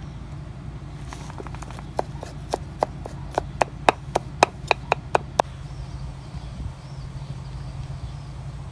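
A run of about a dozen sharp, ringing taps over some four seconds, faint at first, then louder and closer together, over a steady low hum.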